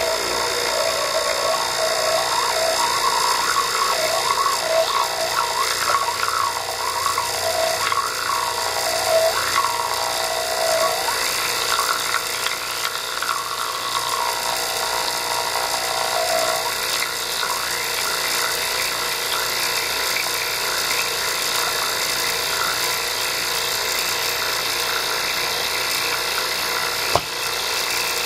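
High-voltage discharge rig running a glow discharge in an evacuated glass tube: a steady high buzz and whine. A wavering tone slides up and down through the first half or so. A single sharp click comes near the end.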